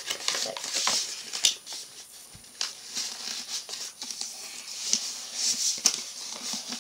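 A sheet of origami paper being folded and creased by hand: rustling and crinkling, with a few sharp snaps of the paper.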